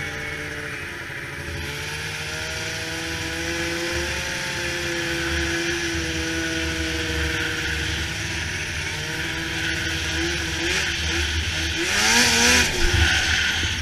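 Polaris snowmobile engine running under way at a steady pace, then revving up with a rising pitch from about ten seconds in. It is loudest near the end, where a rush of noise joins it.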